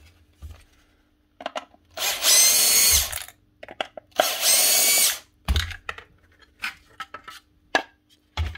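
Cordless drill-driver running in two bursts of about a second each, backing screws out of a vacuum cleaner's plastic motor housing. Short clicks and knocks of plastic parts being handled come between and after the bursts.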